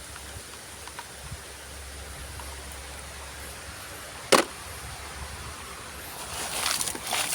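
Toys being handled against a steady faint hiss: one sharp knock about four seconds in, then irregular clattering and rustling near the end.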